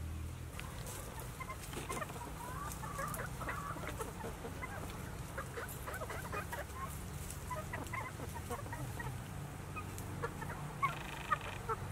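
A small flock of free-range chickens clucking as they forage: many short clucks, starting about a second in, with a couple of sharper, louder ones near the end.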